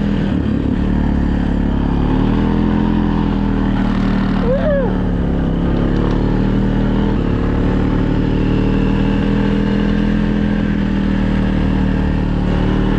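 Small off-road vehicle engine running steadily under way, its pitch rising and falling a little. A brief shout rises and falls about four and a half seconds in.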